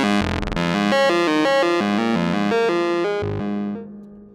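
Make Noise STO oscillator playing a quick sequence of stepped synth notes, raw and without an envelope, before the bitcrushing sample and hold; it dies away near the end.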